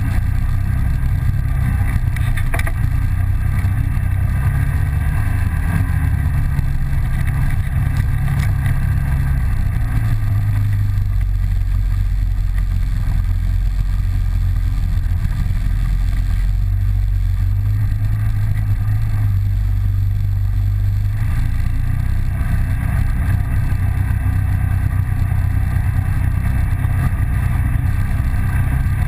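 Polaris 800 twin ATV engine running under the rider, its low note rising and falling as the throttle changes over rough trail, with a few brief rattles from the machine.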